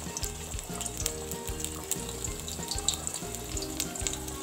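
Beaten eggs sizzling and crackling in hot oil in a pan over a high flame, with background music playing.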